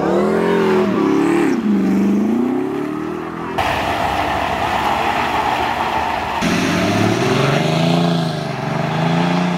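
Pickup truck engines revving, the pitch swinging up and down. A stretch of steady rushing noise comes in the middle. In the last few seconds an engine is revved again and again in quick rises and falls.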